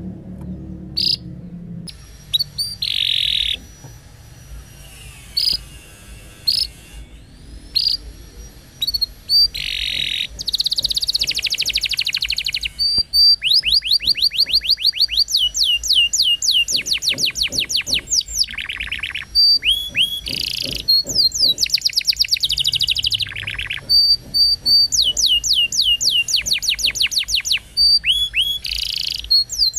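Canary singing: scattered chirps and short whistled notes at first, then from about halfway through, long rapid trills of quickly repeated down-slurred notes, several in a row.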